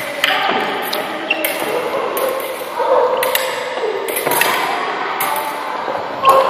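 Fencing blades striking each other about once a second in a bout, each contact a sharp metallic clink that rings briefly.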